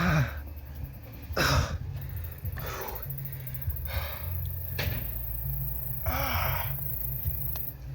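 A man gasping and groaning in about six short breathy bursts, the first falling in pitch, over a steady low hum.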